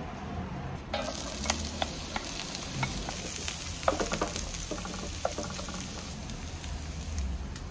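Diced onion sizzling in hot olive oil in a paella pan; the sizzle starts suddenly about a second in. A wooden spatula stirring it makes scattered scrapes and taps against the pan.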